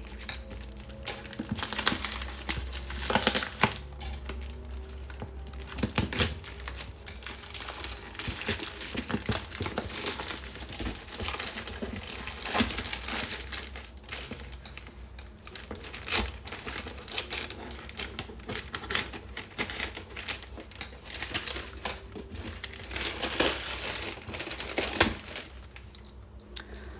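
Irregular clicking, tapping and crinkling from hands handling a parcel and its packaging.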